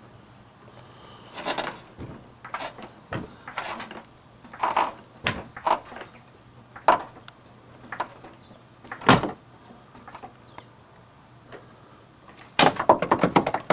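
Repeated creaks and squeaks as the engine is jacked up and down: a floor jack with a block of wood on its plate grinding against the engine, and the ripped rubber of a broken upper transmission mount tearing and flexing. About a dozen separate creaks, then a quick run of rattling creaks near the end.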